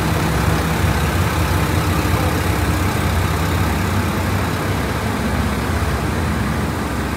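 JR Shikoku 2700 series diesel multiple unit standing with its engines idling: a steady low hum under an even hiss.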